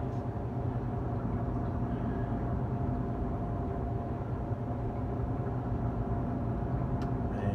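Walk-in cooler's refrigeration unit running: a steady low hum with a fainter, higher steady tone over it. A short click near the end.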